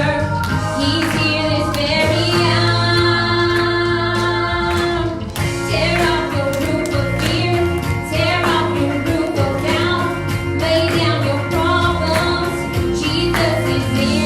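Worship music: a woman's voice singing a song over a band, with sustained instrument notes and percussion.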